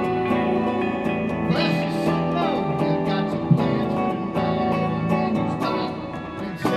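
Live jazz trio music led by an archtop hollow-body electric guitar picking single notes and chords, with a sliding melody line above it.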